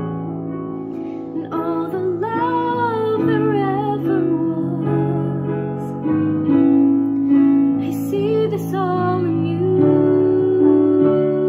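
A woman singing a song from a stage musical to digital piano accompaniment; piano chords play alone briefly before the voice comes in about a second and a half in.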